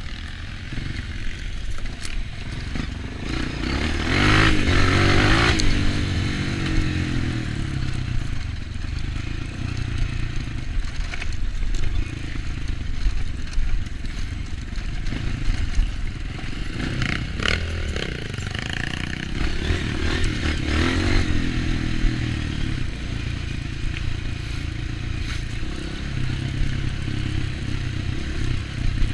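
Honda CRF230 single-cylinder four-stroke dirt bike engine running on a trail ride, revving up hard several times, loudest about four to five seconds in, between steadier stretches.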